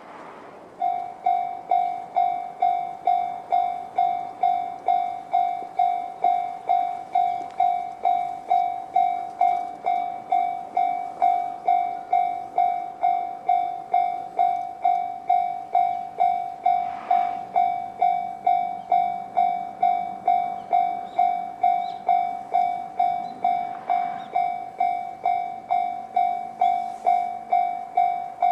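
Japanese railway level-crossing warning bell, the electronic JR standard tone, starts about a second in and rings steadily at about two strikes a second.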